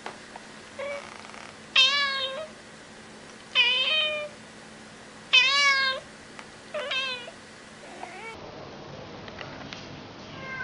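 Grey tabby cat meowing repeatedly: about six short meows roughly a second and a half apart, the middle three loudest.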